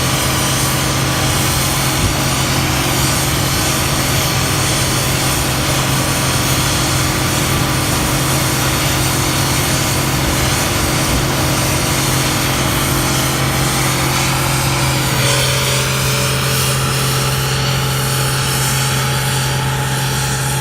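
Engine of harvest machinery running steadily, a loud continuous hum, with a change in its tone about fifteen seconds in.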